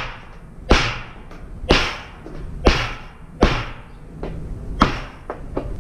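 A hammer drives an old chisel into a ribbed metal roofing panel to punch a hole for a vent pipe. There are four loud metallic strikes about a second apart, each with a short ring, then lighter, quicker taps near the end.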